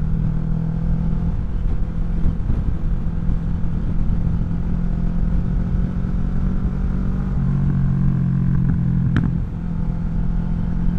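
2017 Kawasaki Vulcan 650 S parallel-twin engine running under way through an aftermarket CS Racing exhaust, with a steady note. The note shifts about seven seconds in, then dips briefly with a short click about nine seconds in.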